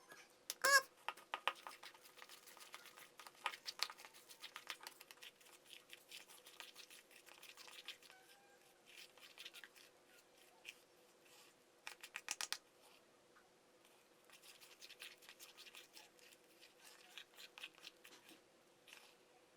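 Homemade egg-and-flour slime being squeezed and worked by hand, giving clusters of quick sticky clicks and crackles. The loudest cluster comes about a second in and another near the middle, over a faint steady hum.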